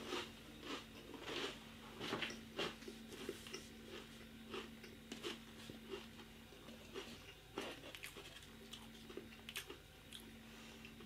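Faint chewing of Pringles crisps in the mouth: irregular small crunches, closer together at first and thinning out toward the end.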